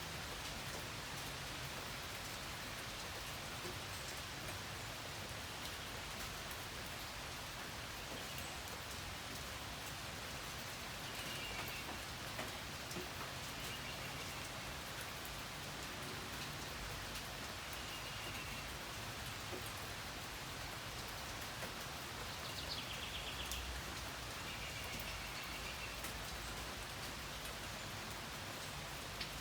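Steady rain falling, an even hiss of drops with scattered individual drips. A few faint short high calls sound now and then, in the middle and the latter part.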